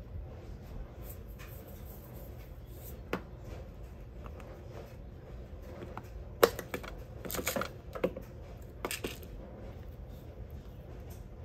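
Scattered light clicks and clatter of kitchen items being handled, over a low steady hum. The sharpest click comes about six and a half seconds in, followed by a short run of clatter.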